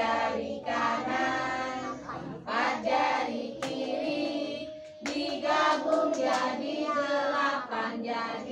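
A group of young children singing a song together, in phrases with short breaks between them.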